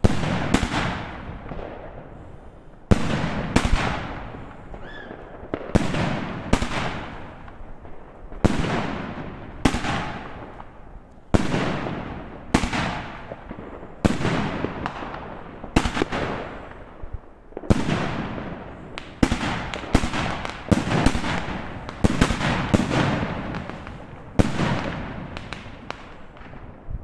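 A 50 mm consumer firework battery firing shot after shot, roughly one every second or so, each a sharp bang that trails off in a fading crackling hiss. The shots come closer together about two-thirds of the way through.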